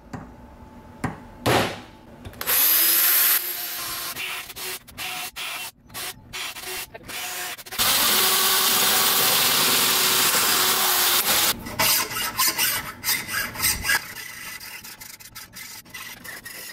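Two hammer taps on a punch marking the aluminum crankcase plate, then a battery drill boring into it, running briefly, in short stop-start bursts, then steadily for a few seconds. Near the end a hand file rasps back and forth across the plate's edge, cutting the transfer channel.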